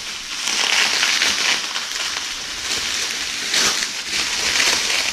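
Plastic bubble wrap rustling and crackling as it is handled and pulled off a fishing rod, in uneven surges.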